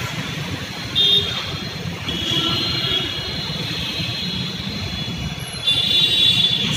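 Steady city traffic rumble with short vehicle horn toots, three of them: about a second in, near the middle, and a longer one near the end.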